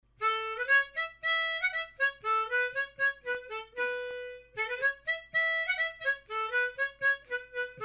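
Music: a harmonica playing a quick tune of short notes, some of them bent upward.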